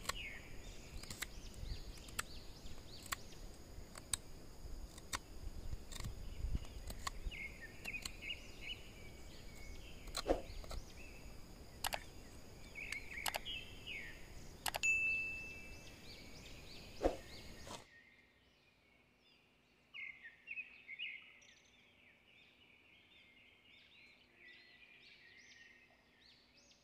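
Outdoor rural ambience: birds chirping over a steady high insect trill and low rumble, with sharp clicks about once a second. Near the end the sound drops abruptly to quieter bird chirps.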